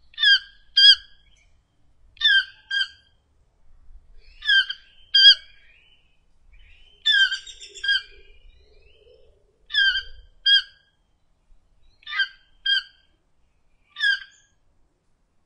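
Toco toucan calling: short, harsh notes, mostly in pairs about half a second apart, repeated roughly every two seconds.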